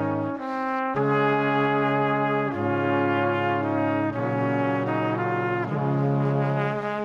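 Instrumental background music of held chords that change about every one and a half seconds.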